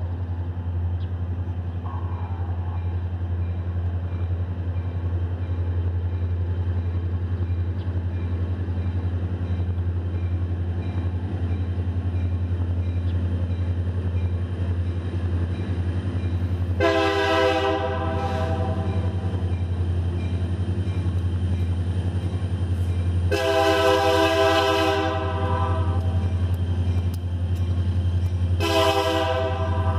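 US&S teardrop railroad crossing bell ringing steadily at the active crossing. An approaching train's horn cuts in with three blasts: a short one past the middle, a longer one a few seconds later, and a short one near the end.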